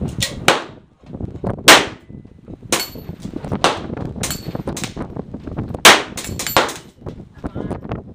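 Smith & Wesson Model 10 .38 Special revolver being fired, about six shots spaced a second or two apart with a longer pause midway. A thin high ring of struck steel plate targets follows a few of the shots.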